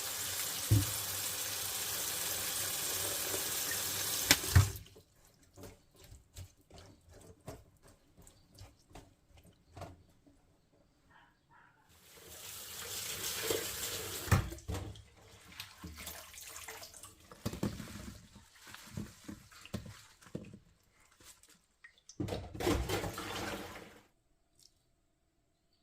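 Water running from a tap into a sink in three spells, the first the longest, with short knocks and clatter of handling in between.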